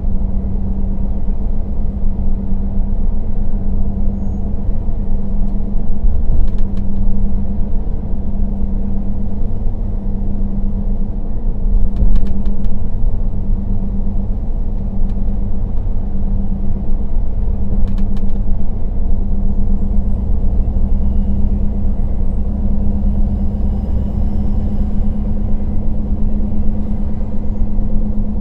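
Temsa Safir Plus coach's engine running at a steady pitch, a low drone and rumble heard from inside the passenger cabin. A faint high whine rises and falls in the last third.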